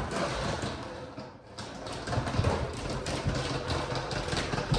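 Battery-powered toddler remote-control car driving and reversing across the floor: its small motor runs with a dense clatter of plastic knocks, easing off briefly about a second and a half in.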